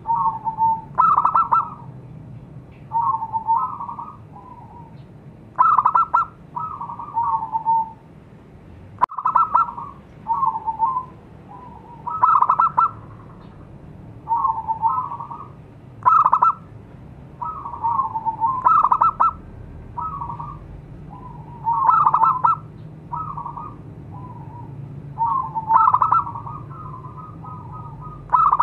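Zebra dove (perkutut) cooing loudly, its short rolling coo phrase repeated over and over about every one to two seconds.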